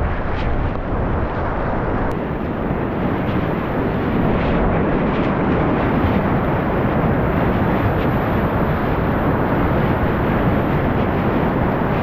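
Whitewater rapid rushing, a steady, loud roar of churning river water.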